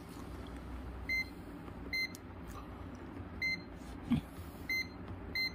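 Metravi digital multimeter giving five short, high beeps at uneven intervals while it is being set to continuity mode. A soft knock about four seconds in.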